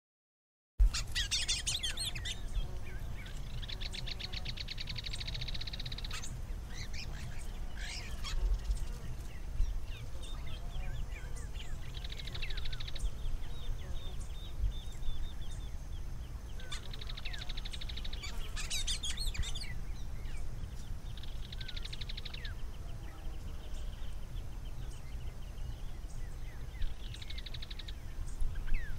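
Crimson-fronted cardinal (cardeal-do-araguaia) singing, starting about a second in: phrases every few seconds of sharp, high notes and rapid trills, over a steady low rumble.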